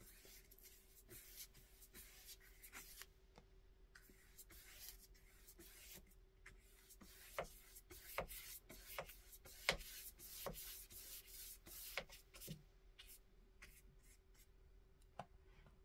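Faint, irregular scratchy swishes of a paintbrush dragging acrylic paint across damp paper, over a faint steady hum.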